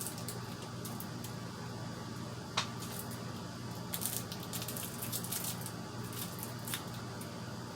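Light rustling and crinkling of packaging as a small PC part is handled, with a sharp click about two and a half seconds in, over a steady low hum.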